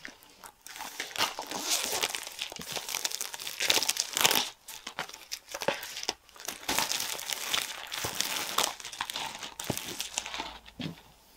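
Plastic shrink-wrap being torn open and pulled off a boxed book set: a continuous run of crinkling and crackling, loudest about four seconds in.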